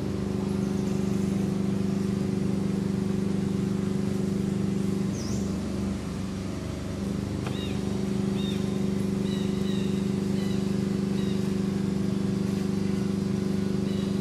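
A steady low motor hum, holding one pitch and dipping briefly about five to seven seconds in. From about seven seconds in, short high chirps repeat roughly once a second over it.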